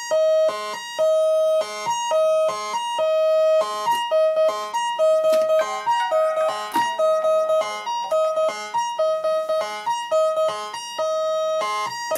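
Doepfer Dark Energy analogue monosynth playing a repeating sequence of short notes, mostly on one pitch with higher notes mixed in. A wavering, gliding tone joins about halfway through, and the notes turn quicker and choppier in the second half.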